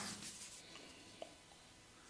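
Faint rubbing of hands over skin and hair during a massage, with one small click about a second in.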